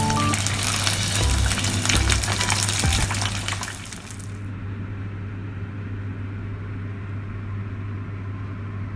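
Chicken frying in hot oil, a dense crackling sizzle, that drops away about four seconds in, leaving only a low steady hum.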